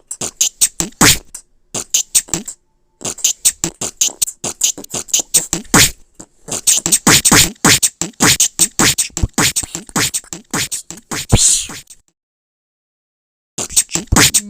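A person beatboxing: quick runs of mouth clicks and hissed percussive strokes with short breaks, stopping for about a second and a half near the end before starting again.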